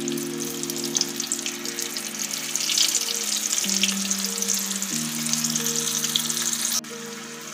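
Flour-coated chickpeas deep-frying in hot oil in a kadai: a steady sizzle with crackling, loudest in the middle, that cuts down suddenly near the end.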